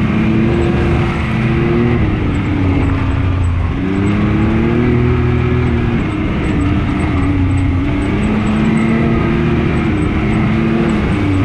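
Can-Am Maverick X3 RC side-by-side's turbocharged three-cylinder engine running under way, its pitch rising and falling every couple of seconds with the throttle, over a steady rush of wind and terrain noise.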